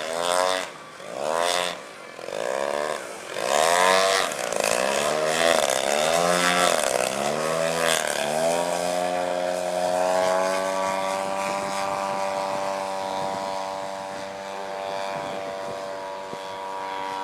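Propeller engine of a small aerobatic airplane in flight. For the first eight seconds or so its pitch swings up and down about once a second as the plane maneuvers, then it settles into a steady drone.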